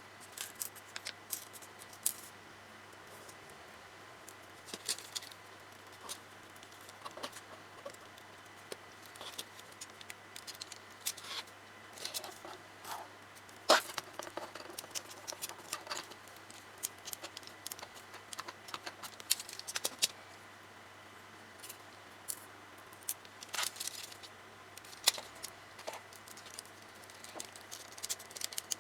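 Small hard plastic parts of a Tamiya Mini 4WD kit being handled and fitted together: irregular light clicks, taps and snaps, the sharpest about halfway through.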